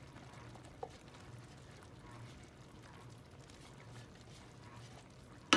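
Quiet kitchen background with a faint low hum and a small click about a second in. Right at the end comes a sharp, ringing clatter of a utensil against cookware.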